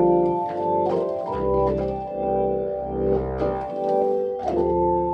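Combo organ with a Hammond-style tone playing held chords that change every second or so, over a bass line played on MIDI bass pedals.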